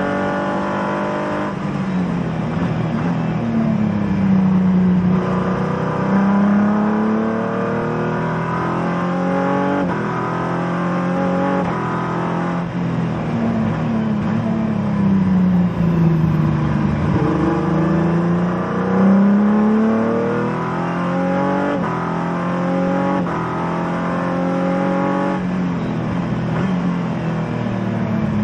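Race car engine heard from inside the cockpit during a hard lap: the revs climb through the gears with a sharp drop at each upshift, and fall away in a run of downshifts around the middle.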